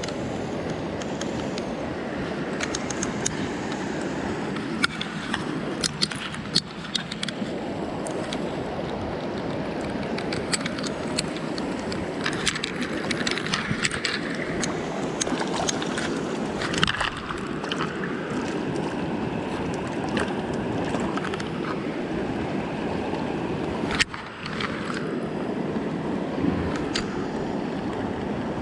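Shallow stream running over stones close by: a steady rush of water with many small splashes and sharp clicks scattered through it, and a brief break about 24 seconds in.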